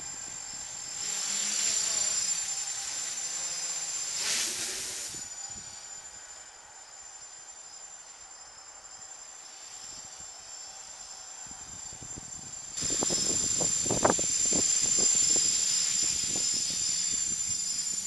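Small electric quadcopter's motors and propellers whining in flight, a high steady tone that grows louder twice as the craft comes close: in the first few seconds and again over the last five seconds. Low rumbles sit under the whine near the end.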